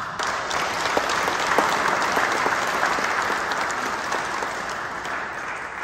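People applauding, a round of clapping that starts suddenly and slowly dies away.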